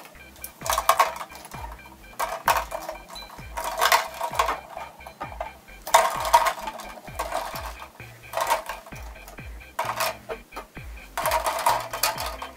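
Raw eggs being set one by one into a stainless steel pot of cold water: clinks of shell against shell and against the pot, with small splashes, coming in clusters every second or two.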